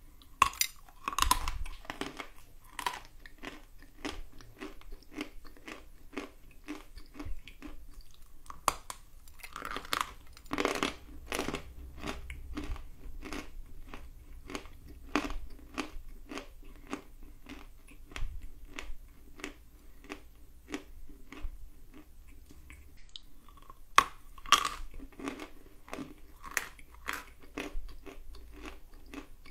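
Close biting and crunchy chewing of a dry white lump of edible clay: a loud crunching bite near the start and another near the end, with steady crunching chews about twice a second in between.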